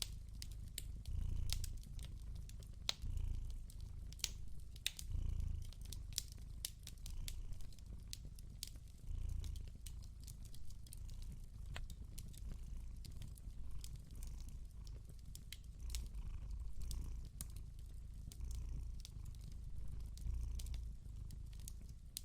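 A cat purring, a low rumble that swells in slow uneven waves, over a fire crackling with many scattered sharp pops.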